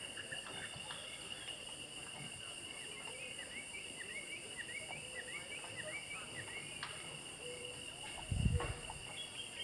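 Outdoor natural ambience of insects trilling steadily at a high pitch, with a bird giving a quick series of short repeated chirps through the middle and a single low thump near the end.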